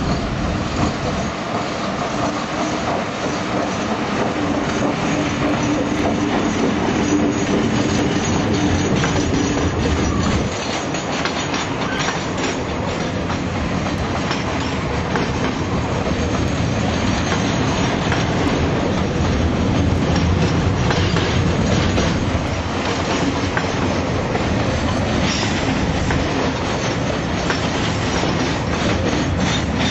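A diesel-hauled freight train passing close by. The locomotive's engine runs loudly as it goes past, dropping away after about ten seconds, and then a long line of container wagons rolls by with a steady rumble, clickety-clack over the rail joints and occasional wheel squeal.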